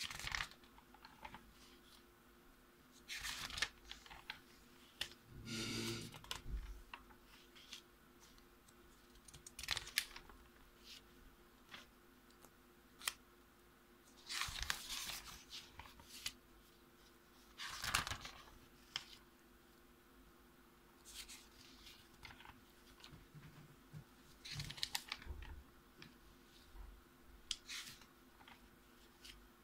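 Pages of a paper notebook with glued-in worksheets being turned by hand: about ten short paper rustles and flaps every few seconds, one of them a longer rasping rub, over a faint steady hum.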